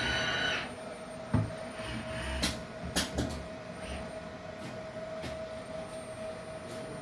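Soldering robot machinery running: a steady hum, with a higher whine that cuts off about half a second in and a few sharp mechanical clicks over the next two seconds.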